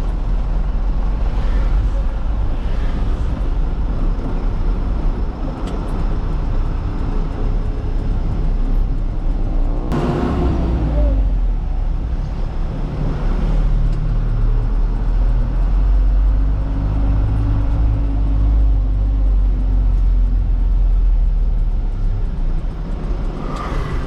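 Cargo truck engine running with steady low road rumble, heard from inside the cab. A short, sharper sound cuts across it about ten seconds in.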